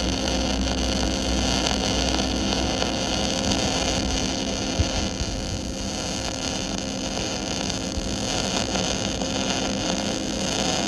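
CO2 gas-shielded (MIG) welding arc burning steadily: a continuous hiss and crackle with a steady hum underneath.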